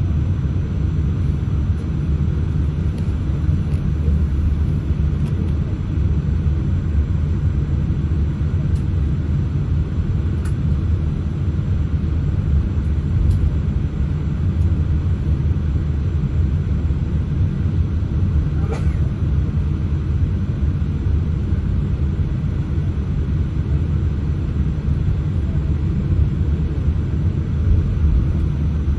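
Steady low rumble inside the cabin of a Boeing 787-8 taxiing on the ground, from the engines at taxi power and the rolling gear.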